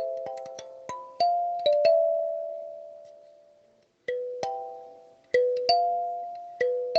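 Kalimba played solo: plucked metal tines ringing out a slow melody one note at a time. About two seconds in, a note is left to ring until it dies away, and the melody picks up again about four seconds in.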